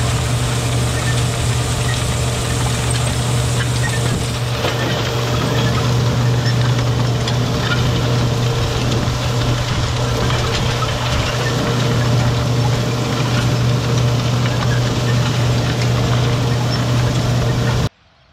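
Tractor engine running steadily while pulling a row-crop planter across the field, heard up close as a constant low hum. It cuts off suddenly just before the end to a much quieter sound.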